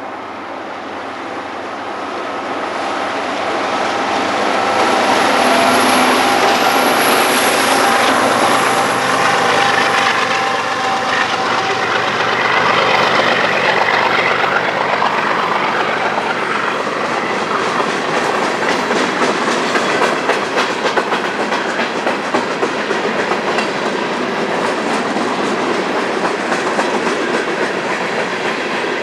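BNSF diesel locomotives approach and pass, growing louder over the first several seconds with a high whine as they go by. Then a long string of empty coal cars rolls past with a steady, rapid clickety-clack of wheels over the rail joints.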